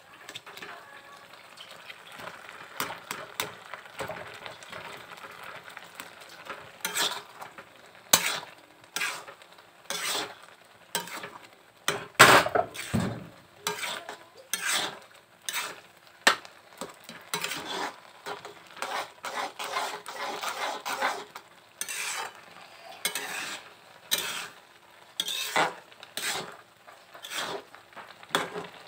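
A spatula scrapes and stirs a thick bhuna masala around a metal karahi in many irregular strokes, over a steady sizzle of frying. The loudest scrape comes about 12 seconds in.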